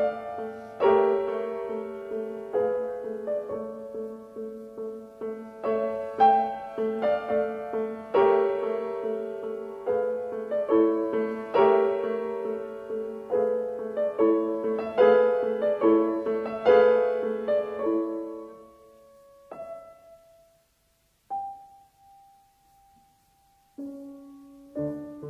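Background piano music: a slow melody over a held low note, thinning to a few single notes with a near-silent pause in the last third before resuming near the end.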